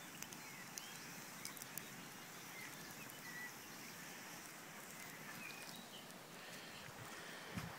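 Small birds chirping in short, scattered calls over a steady outdoor hiss, with a few faint clicks in the first two seconds and a low thump near the end.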